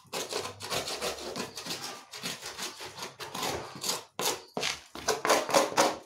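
Flat wooden stick scraping the dirty bottom tray of a bird cage in repeated rasping strokes, two or three a second, loudest near the end.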